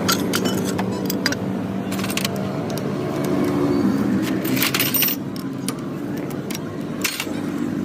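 Motorcycle engine running steadily, with repeated sharp metallic clicks and clinks over it.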